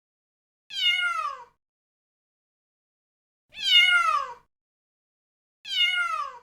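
Electronic toy cat playing a recorded meow three times, the same falling call each time, each under a second long.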